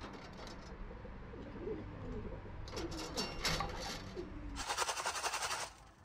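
Racing pigeons cooing in short low calls, with a burst of rapid rustling noise near the end.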